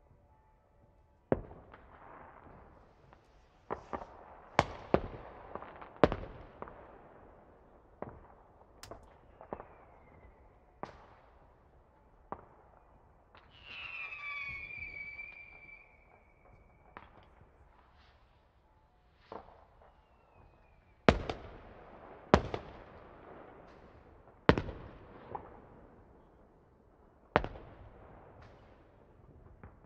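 Fireworks going off: more than a dozen sharp bangs at irregular intervals, each trailing off in a short echoing tail, with a falling whistle about halfway through.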